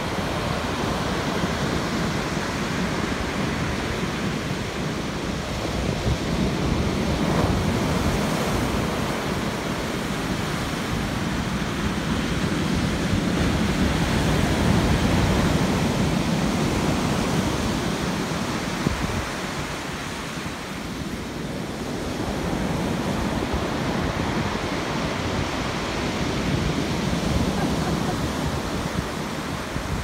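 Rough sea surf breaking on a pebble beach, waves crashing and washing in, the noise swelling and ebbing every several seconds.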